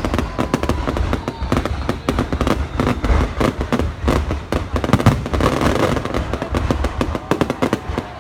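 Fireworks display going off: a dense, rapid run of bangs and crackles one after another, over a steady low rumble.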